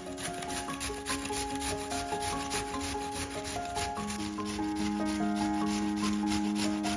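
Food being grated by hand on a metal grater: quick, even rasping strokes, several a second, that stop just at the end, over background music with a slow melody.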